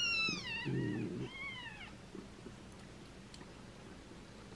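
Two-day-old kitten mewing twice, high-pitched cries that fall in pitch: a longer one of about a second, then a shorter one.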